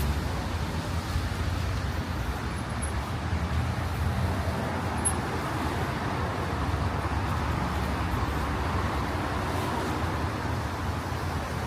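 Steady road traffic: a low rumble of vehicles with tyre and engine noise, swelling a little about two-thirds of the way through as a vehicle passes.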